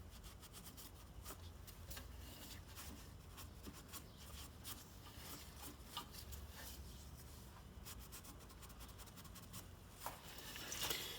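Faint scratching and rubbing with many small scattered clicks as steel reamer tools are hand-cleaned and handled. It gets a little louder near the end.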